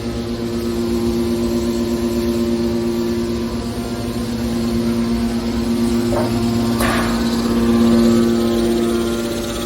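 Aluminum can baling machine running with a steady droning hum, with a brief clatter about six to seven seconds in.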